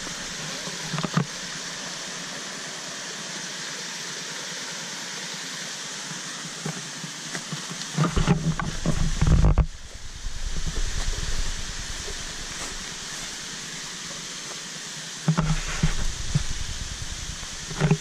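Steady rushing hiss of a small trickling cascade of water over rocks, with bursts of low rumbling noise on the microphone about eight seconds in and again from about fifteen seconds on.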